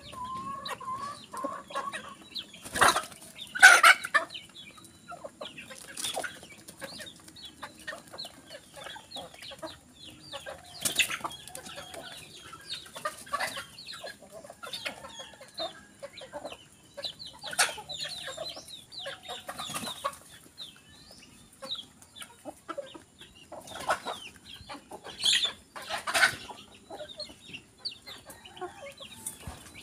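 A flock of desi (country) chickens clucking as they forage, short calls overlapping all through, with a few louder calls standing out now and then.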